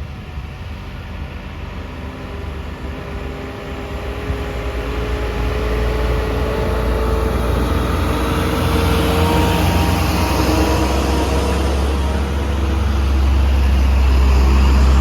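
Heavy truck's diesel engine labouring under load up a steep climb, its pitch rising slowly as it grows louder, with a further rise in level near the end.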